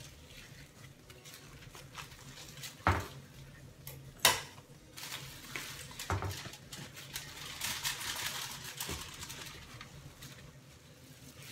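Plastic cooking bag rustling and crinkling as it is peeled off a cooked pork shoulder. Two sharp knocks come about three and four seconds in, followed by a longer stretch of crinkling.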